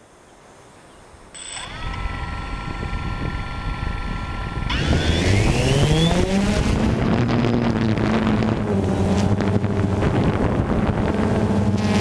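DJI Phantom 2 quadcopter's electric motors and propellers start up a little over a second in with a steady whine. About five seconds in they rise sharply in pitch as the drone throttles up to lift off, then settle into a loud, steady, many-toned buzz in flight.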